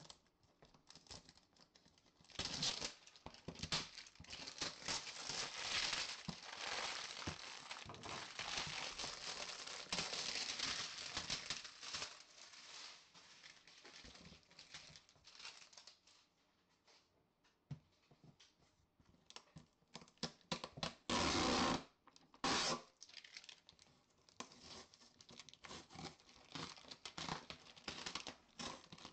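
Cellophane shrink-wrap crinkling and tearing as it is cut and pulled off a cardboard box, in long scratchy stretches with a quieter lull mid-way. Two short loud rips come a little past the two-thirds mark, and red security-seal tape is torn off the box near the end.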